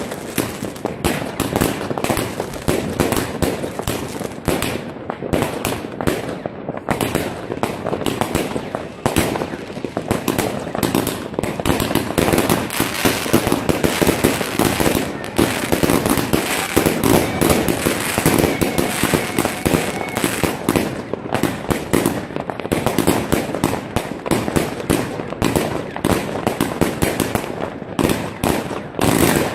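New Year's Eve fireworks and firecrackers going off all around: a dense, continuous stream of bangs and crackling with no break.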